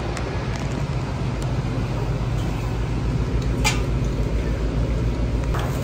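Steady low hum inside a WMATA 7000-series railcar standing at the platform, from the car's air conditioning and onboard equipment, with a single sharp click a little past halfway.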